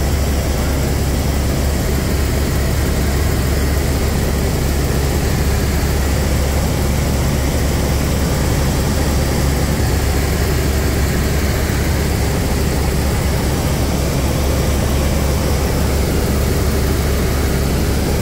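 Airbus H125 (AS350 B3 Ecureuil) helicopter in flight, heard from inside the cabin: a steady, unbroken drone of its single Arriel 2B turbine and main rotor, heaviest in the deep low end.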